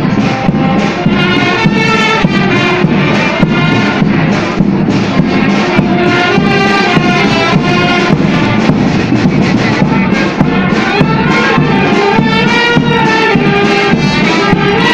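Brass band playing, with trumpets holding melody lines over a steady drum beat.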